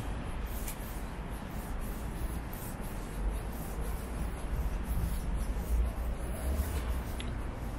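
Footsteps of someone walking on pavement, faint scuffs about two or three a second, over a low, steady city rumble.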